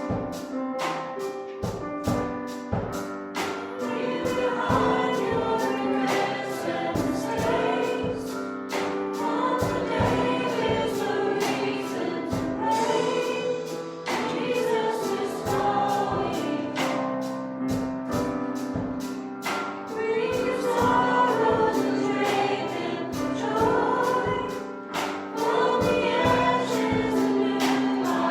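Live gospel worship music: a group of singers with a band, a steady beat running throughout.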